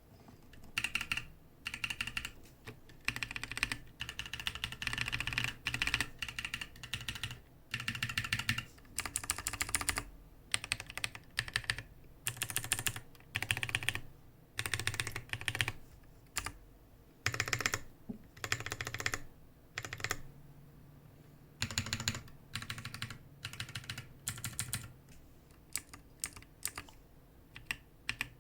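Typing on a Lily58 Pro split mechanical keyboard: keystrokes come in runs of a second or two with short pauses between, thinning to scattered single keypresses near the end.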